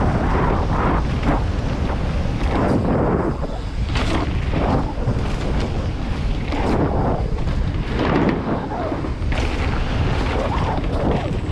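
Wind buffeting the microphone and mountain-bike tyres rolling fast over a dirt trail, with irregular rattles and surges as the bike descends.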